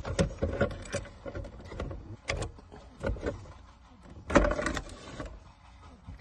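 Plastic centre-console trim of a 2011 Ford Mustang being pried loose and lifted out around the shifter: irregular plastic clicks, knocks and rattles, with a louder clatter about four seconds in.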